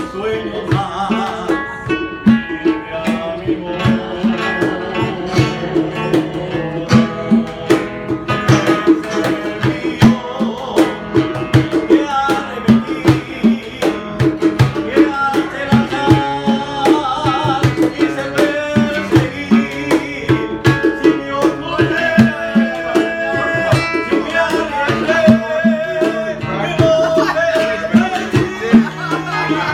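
Live acoustic band music: two nylon-string classical guitars strummed and picked over a steady cajón beat.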